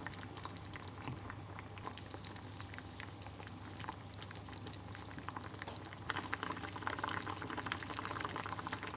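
Potato and tuna stew bubbling on low heat in an earthenware pot: a steady run of small pops and blips that grows louder about six seconds in.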